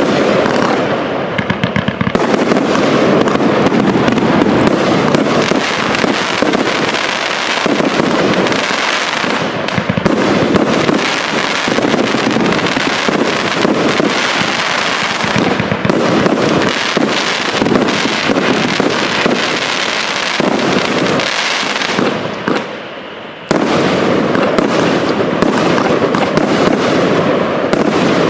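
84-shot consumer firework cake firing its shots in rapid, continuous succession, with a short lull about 22 seconds in before the shots pick up again.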